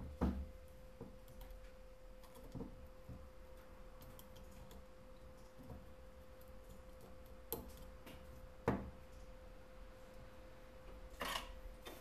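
Scattered sharp clicks and light knocks of a helping-hands stand's metal arms and alligator clips being adjusted around a phone circuit board, the loudest about two-thirds of the way in and a short clatter near the end, over a faint steady hum.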